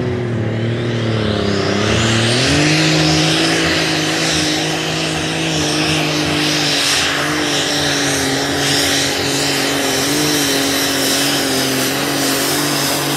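Super Stock pulling tractor's methanol-burning turbocharged engine running flat out on a pull. A high turbo whine climbs steeply over the first two seconds while the engine note dips and then steps up, after which the engine holds a steady high-revving drone.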